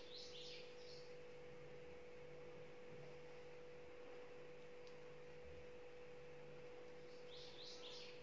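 Near silence: a faint steady electrical hum, with two brief soft swishes, one just after the start and one near the end.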